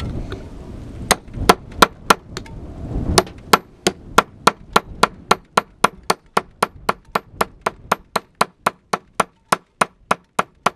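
A one-kilo club hammer striking a steel chisel into rock: a steady run of sharp, ringing metallic strikes, about three a second, chipping away around a stone embedded in the rock. Wind rumbles on the microphone during the first few seconds.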